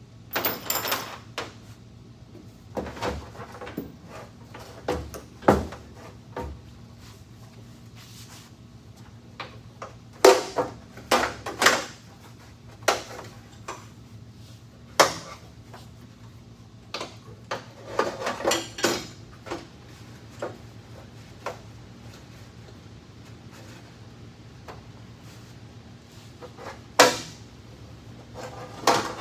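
Irregular knocks, clicks and rattles of hand work on a race truck's interior, as parts and tools are handled, some in quick clusters, over a steady low hum.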